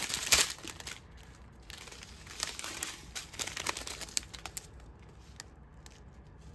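Small plastic bags of diamond-painting drills crinkling as they are handled. The crinkling is loudest in the first second, comes in scattered bursts over the next few seconds, and is faint near the end.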